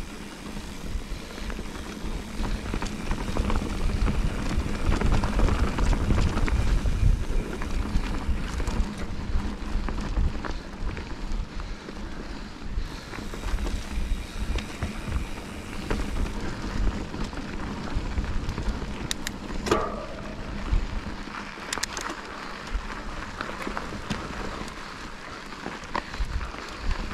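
Wind buffeting the microphone over a continuous crackling, rustling noise, heaviest about five to eight seconds in, with a brief squeak about twenty seconds in.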